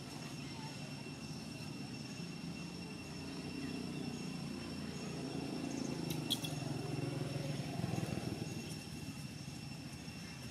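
Low steady rumble that swells in the middle and eases near the end, under a steady high-pitched whine, with one sharp click about six seconds in.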